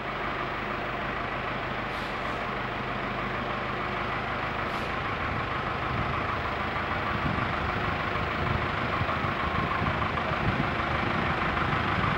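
Motor vehicle engine idling steadily, under a steady rushing noise.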